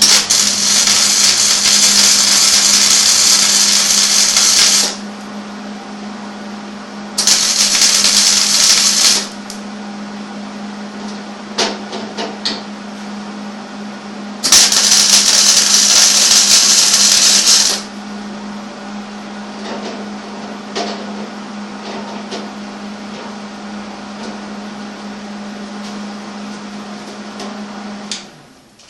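Arc welding a steel nut to flat steel: three bursts of crackling, sizzling arc, the first and last a few seconds long and the middle one about two seconds, laying three spot welds. A steady hum runs underneath and stops just before the end, with a few faint ticks between the welds.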